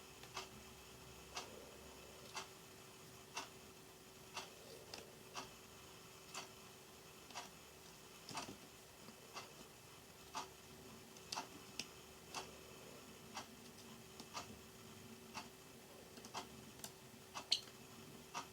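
Clock ticking evenly about once a second, with a few extra sharp clicks in between from a Java sparrow pecking at pea sprouts. A faint steady hum runs underneath.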